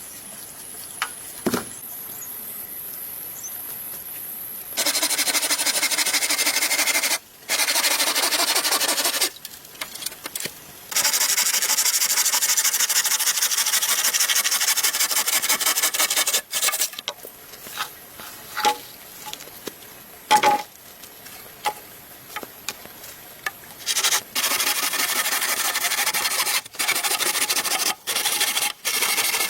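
A hand tool rasping or sawing across wood in several long spells of steady scraping, with short pauses and a few light knocks in between.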